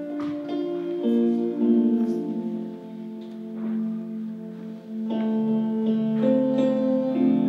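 A worship band plays the instrumental opening of a song on guitar and keyboard, holding steady chords that change every few seconds, with no singing yet.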